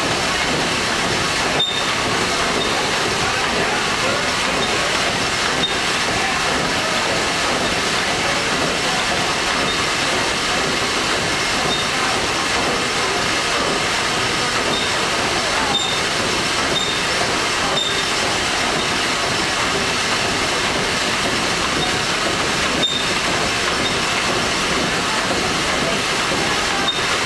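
Liberty ship's triple-expansion steam engine running, heard in its engine room: a loud, steady mechanical noise with no clear beat.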